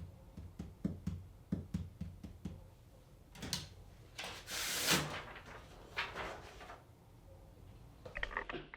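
Manual typewriter keys striking, about two a second, for the first couple of seconds. Then come a few longer rasping sounds about halfway through, the loudest near five seconds in, and a short run of clicks near the end.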